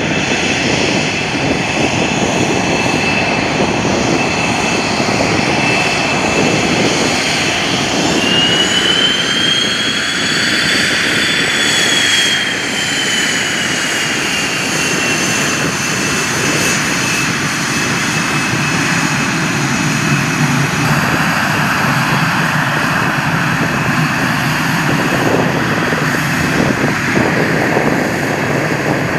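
Twin turbofan engines of an F/A-18C Hornet taxiing at low power: a steady high whine over a rushing hiss. About eight seconds in the whine rises in pitch and falls back over several seconds as the jet passes close, and later it gives way to a lower rush of exhaust as the jet moves away.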